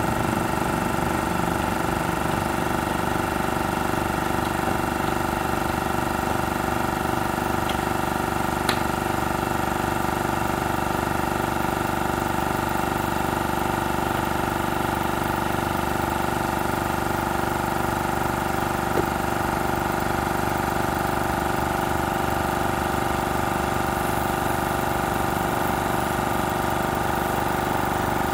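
MAX AK-7000AII air compressor running steadily, its motor and pump giving a constant hum with two faint clicks partway through.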